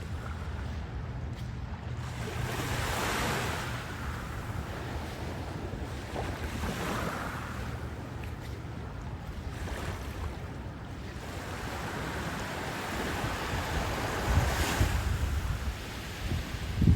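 Ocean surf breaking and washing up the beach in repeated swells, with wind buffeting the microphone, the gusts heaviest near the end.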